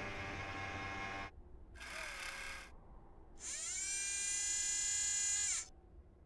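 Electric servo-motor whirs for the animated Curiosity rover's moving parts. A buzzing whir stops about a second in and a short whir follows around two seconds. Then comes a louder, longer whine that rises in pitch, holds and cuts off near the end.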